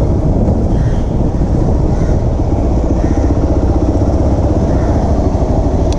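Hero Xpulse 200 4V motorcycle's single-cylinder engine running as the bike rides slowly, a steady deep engine note with a fast even pulse.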